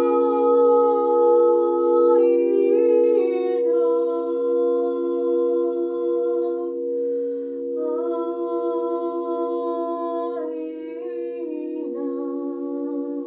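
A wordless voice humming or toning slow, held notes that step up and down in pitch, over the steady ringing drone of singing bowls.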